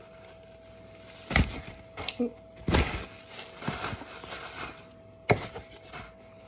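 Handling noises at a kitchen counter: a sharp knock about a second and a half in and another about five seconds in, and a burst of rustling and clatter around three seconds in. Under them runs a faint steady hum.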